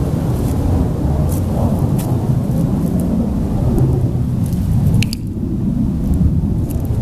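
Wind buffeting the camera's microphone: a loud, continuous low rumble, with a few faint clicks on top.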